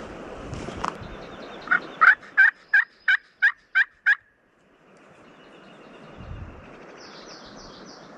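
A run of about ten turkey yelps, evenly spaced at about four a second, over a steady outdoor hiss.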